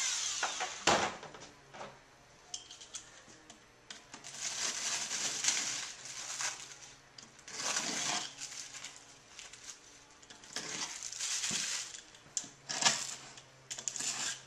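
Scratchy scraping on the OSB lid of a wooden shipping crate, in four bouts of a second or two each, with a single sharp knock about a second in.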